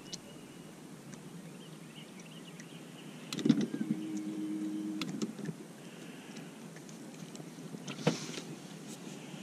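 Electric trolling motor whirring in a steady low hum for about two seconds, starting with a knock about three seconds in. A sharp click comes near the end.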